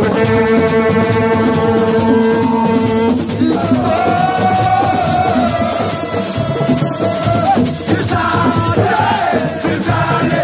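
A man singing into a microphone through loudspeakers, holding two long notes, the second higher, over music with a steady shaking percussion.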